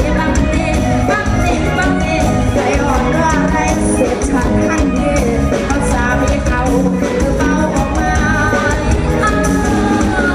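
Thai band music with a singer's voice carrying a bending melody over a steady, full accompaniment.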